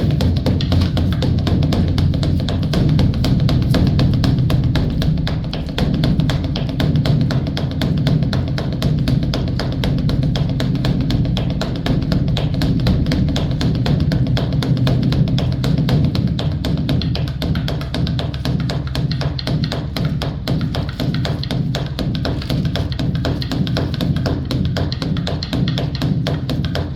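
Large Buddhist temple drum (dharma drum) beaten with sticks in a fast, continuous roll of strikes, deep and booming.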